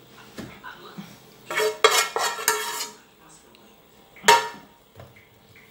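A frying pan and a spoon knocking and scraping against a ceramic baking dish as cooked apple slices are tipped and spooned into it: a cluster of clanks about one and a half to three seconds in, and one sharp ringing clink a little after four seconds.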